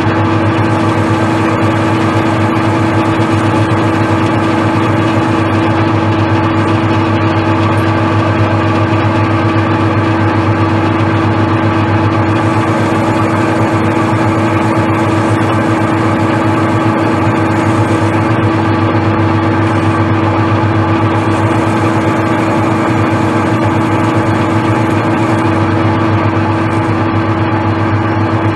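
Metal lathe running steadily while a turning tool faces the tapered seat off a wheel nut, taking it down flat so a washer will sit on it. It makes a loud, even hum with a strong steady tone that does not change.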